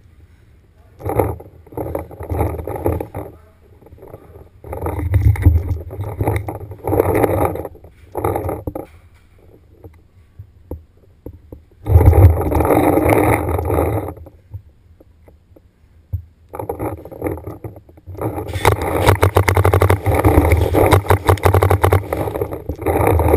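Paintball marker firing in repeated rapid bursts, the longest a fast string of shots near the end.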